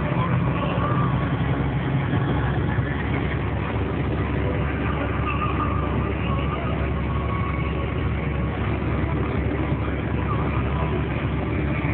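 Snowplow truck driving along a snow-covered road, its engine running steadily under a continuous rushing noise.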